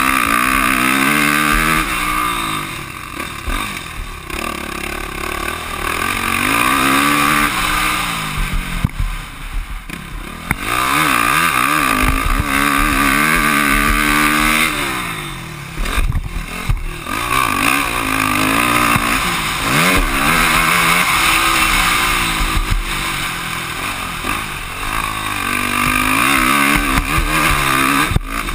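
Motocross dirt bike engine ridden hard, pulling loud and rising in pitch on the throttle, then dropping away when the throttle is eased, about five times over. Heard from a camera on the rider.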